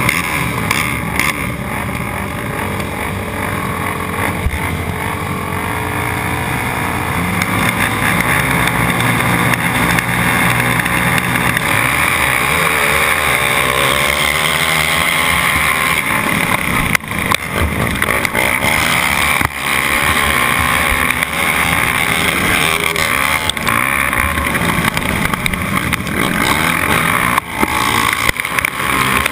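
Racing sport quads (ATVs) at high revs, the rider's own engine loudest and other quads close by. The engines are held steady early on, then run hard through the race with a few brief drops off the throttle.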